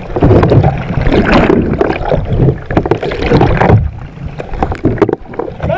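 Water splashing and washing over the deck of a sit-on-top kayak, right over a camera mounted low on the deck, in loud, irregular gushes.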